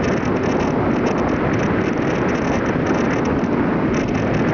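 Steady wind noise on the microphone of a motorbike underway, mixed with the bike's running and road noise.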